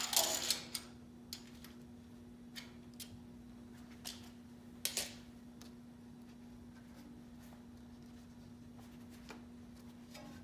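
Scattered clicks and taps of hand work with a steel tape measure against a paper template on a steel frame rail: a short clattering rattle at the start, then a few single clicks over the next five seconds. A steady low hum runs underneath.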